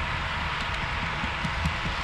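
HO-scale model diesel freight train running on the layout, a steady rolling noise with a low rumble underneath and a few light clicks about one and a half seconds in.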